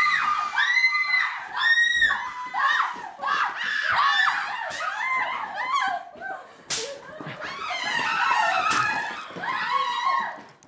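Several young women screaming and shrieking in fright, high-pitched and overlapping, with a few sharp knocks in between.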